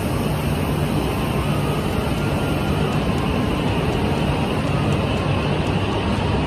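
E6-series Komachi shinkansen moving slowly along a station platform, a steady low rumble and hum of the train.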